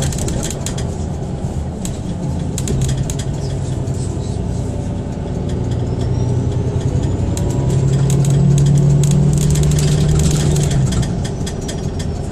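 Ride inside a moving city bus: the engine's low hum and road noise, with the hum swelling about halfway through, loudest around two-thirds in, then easing back near the end. Scattered clicks and rattles from the cabin.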